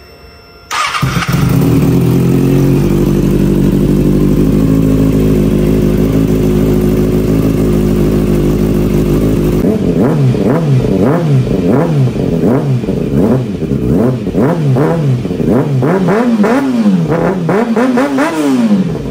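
Kawasaki Ninja ZX6R inline-four motorcycle engine, muffler fitted, starting up about a second in and idling steadily. About halfway through it is revved in quick throttle blips, about one a second, pitch rising and falling each time. It catches and runs cleanly, an engine the owner finds really healthy.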